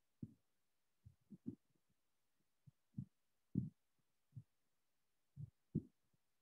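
Soft low thumps, about ten at uneven intervals: a stylus knocking against a tablet's glass screen as lines are drawn.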